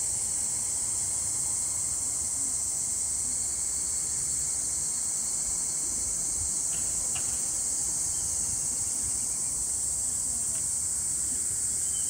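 A steady, high-pitched chorus of insects, a continuous buzz that does not change over the few seconds.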